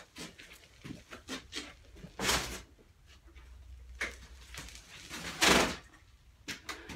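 A motorcycle is rocked forward and braked hard so that its front forks compress, pumping old oil and dirt out past the fork seals. Two loud rushing bursts come, about two seconds in and about five and a half seconds in, with small clicks and knocks between them.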